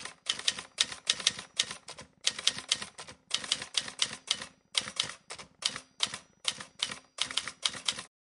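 Typing sound effect: quick runs of sharp, typewriter-like key clicks in short groups with brief pauses between them, stopping just before the end.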